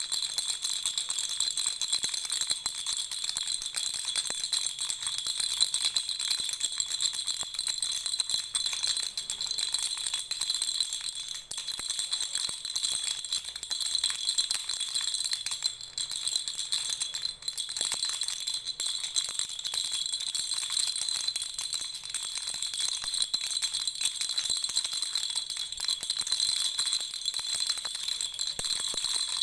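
Lollipop-shaped baby toy rattle shaken continuously: a dense, high jingling rattle with a few brief dips.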